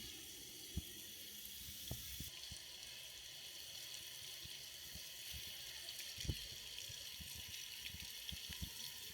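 Faint, steady hiss of seawater, with scattered soft low knocks.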